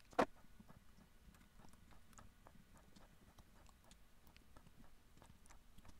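One sharp click just after the start, then faint small ticks and clicks of handling as the cap screws on a plastic steering-wheel housing are fitted by hand.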